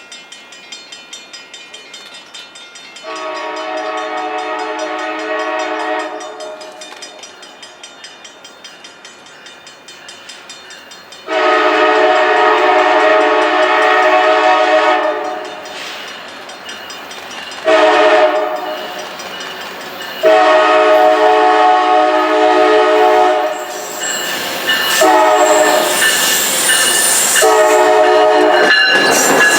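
Freight locomotive's multi-chime air horn sounding a long, long, short, long pattern, the standard grade-crossing signal, louder from the second blast on as the train approaches, then more blasts near the end. A faint rhythmic clicking of wheels over rail joints runs under the quieter first part.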